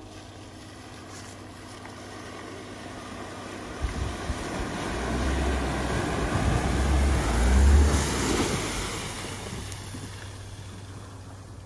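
Ford Maverick pickup driving through a deep muddy water hole: its engine runs under load while water surges and splashes around the wheels. The splashing builds about four seconds in, is loudest a little past the middle, then fades as the truck climbs out.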